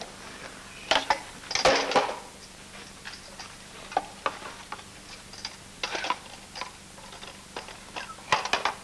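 Handling noises: scattered knocks, clicks and short rustles as sheet music, a wooden chair and a music stand are moved about, the loudest about a second and two seconds in and a quick run of knocks near the end, over a faint steady hum.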